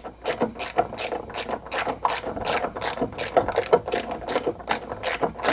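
Hand ratchet wrench clicking steadily, about four to five clicks a second, as a nut on the Jeep door check bracket is turned.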